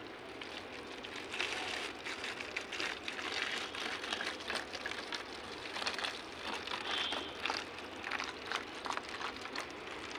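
Water pouring from a plastic container into a plastic water bottle, splashing irregularly as the bottle fills.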